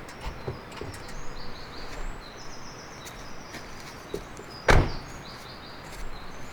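Outdoor ambience with small birds chirping again and again, high and brief, over a steady background hiss. A single loud thump, like a door or lid knocking shut, about five seconds in.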